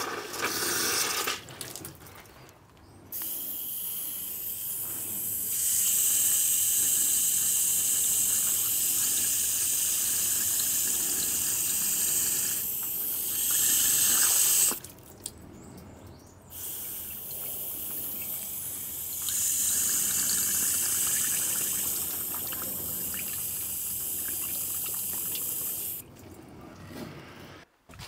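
Water from a garden hose running into a riveted vertical steam boiler through a fitting on its top, a steady hissing rush that breaks off briefly a few times. The boiler is being filled to the top with water ahead of a hydraulic pressure test.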